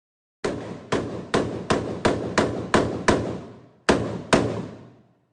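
Rifle fired rapidly indoors: eight shots at about three a second, a short pause, then two more, each with a reverberant tail.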